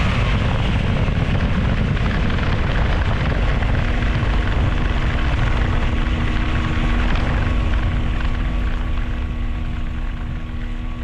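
Quad City Challenger II ultralight's engine and propeller running, heard from the cockpit over a heavy rushing noise. About four seconds in, a steady engine hum comes through clearly, and the sound eases a little near the end.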